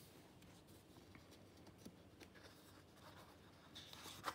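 Near silence, with faint rustling of patterned scrapbooking paper sheets being held and shifted by hand, and a small sharper paper click right at the end.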